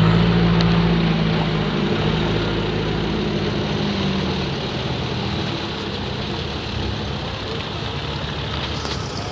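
Off-road 4x4 engine running at low revs as the vehicle crawls over muddy ruts, over a steady rushing noise; the engine note fades about halfway through.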